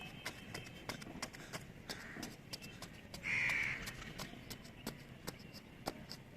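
A bird gives one loud, harsh call about three seconds in, with fainter calls around two seconds in and near the end, over scattered irregular clicks and ticks.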